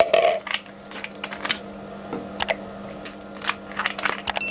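Irregular small clicks and clatters of hard plastic and glass being handled: a StylPro makeup brush cleaning kit (glass bowl, cleanser bottle and battery-powered brush-spinning tool) being set up by hand, over a steady low hum.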